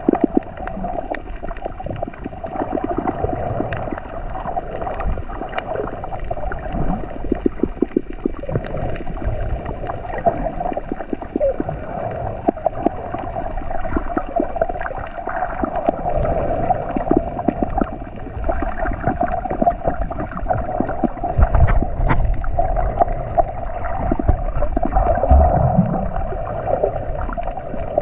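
Muffled underwater sound picked up by an action camera as it moves through the water: gurgling water and bubbles with many short clicks and knocks over a steady hum.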